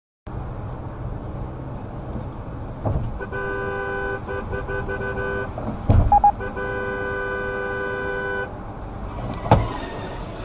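Vehicle horn held in two long blasts of about two seconds each over the road noise of a moving car, with a loud thump between them and another sharp thump near the end.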